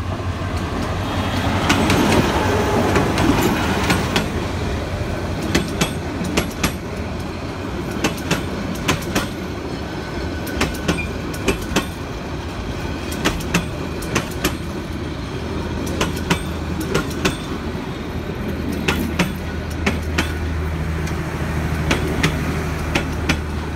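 Diesel-hauled passenger train passing close by: the locomotive goes past first, loudest about two seconds in, then the coaches roll past with a steady low hum and a clickety-clack of wheels over rail joints, the clicks coming in quick pairs.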